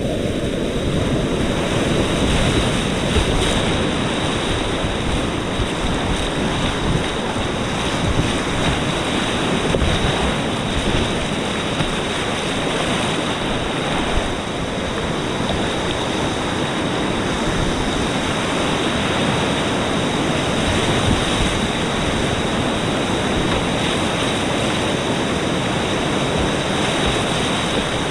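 Whitewater river rapids rushing, a loud, steady wash of water noise with no breaks.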